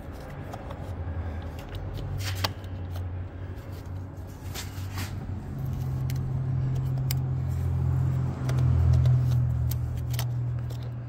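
A low steady hum that grows louder about halfway through, with scattered light plastic clicks and rubs as fingers work the plug onto a Toyota Prius's Denso mass airflow sensor.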